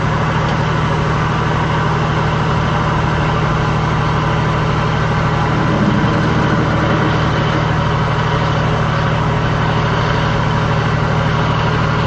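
Heavy engine running steadily at idle: a constant low drone with a hum and no change in speed.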